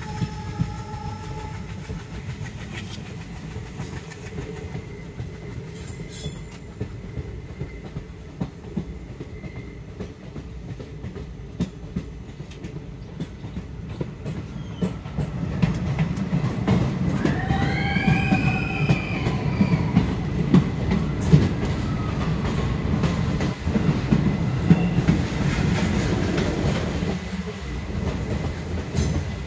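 Passenger express train running, heard from an open coach doorway: a steady rumble with wheels clicking over the rail joints, growing louder about halfway through. A little past the middle, the wheels squeal briefly, the pitch rising and falling.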